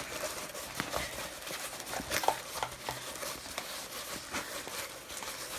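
A rolled diamond painting canvas and its white backing sheet being rewound by hand the other way round: paper rustling with many light taps and clicks.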